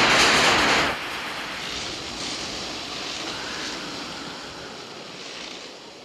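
Film sound effect of the DeLorean time machine vanishing: a loud rushing blast that cuts off suddenly about a second in. A softer hiss follows and slowly fades, as the burning tyre trails smoke on the empty street.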